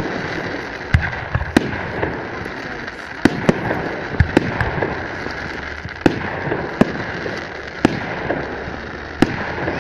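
Festive fireworks salute: about ten sharp bangs of bursting shells at irregular intervals, over a continuous background noise.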